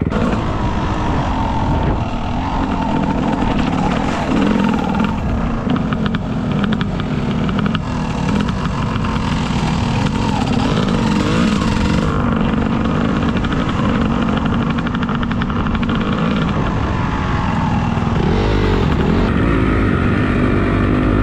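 Dirt bike engine running under load, its revs rising and falling as the throttle is worked, with a clear rise in revs near the end.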